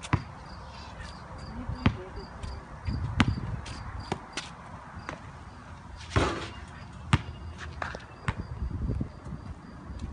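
Basketball bouncing on a concrete driveway: several separate, irregular thuds. A faint high chirp repeats evenly in the background.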